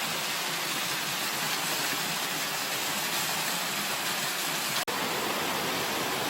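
Rushing stream water running steadily over rocks, a continuous even rush, with a split-second break about five seconds in.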